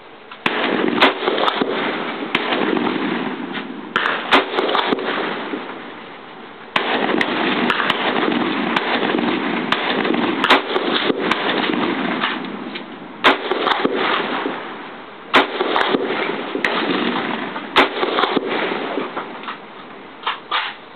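Yugo folding-stock AK rifle fired semi-automatically, about fifteen single shots at irregular intervals of one to two seconds, over a steady rushing hiss.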